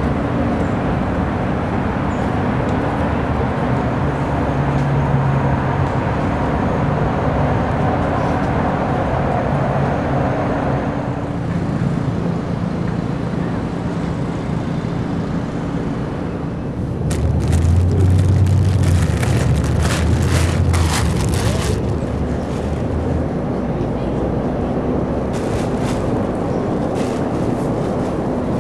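Outdoor city ambience picked up by a camcorder's built-in microphone: a steady rumble of traffic and wind noise on the mic. About 17 seconds in, it gets louder for several seconds with deeper rumbling and crackling.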